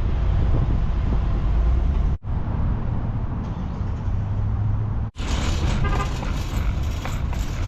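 Motor vehicle road noise: a steady low engine and road rumble, in three short clips split by abrupt cuts, with more hiss in the last one.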